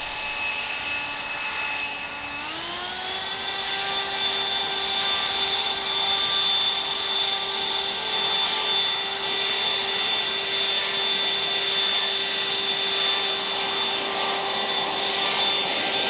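Toro 60V Flex-Force cordless leaf blower running: a steady electric fan whine over a rush of air, stepping up from a lower speed to a higher one about two seconds in, then holding, as it blows grass debris out of the sidewalk cracks and edges. It grows louder as it comes closer.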